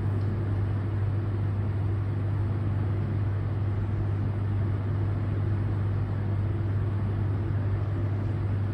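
A steady low hum over an even background hiss, unchanging throughout.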